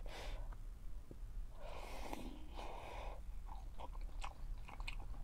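A person eating instant cup noodles: a short slurp at the start, two longer slurps about two to three seconds in, then chewing with quick small wet mouth clicks.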